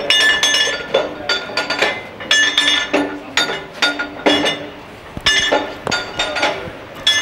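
Clusters of ringing metallic clinks, coming in groups about once a second, as the 1934 Holeby four-cylinder diesel is turned over by hand into its starting position.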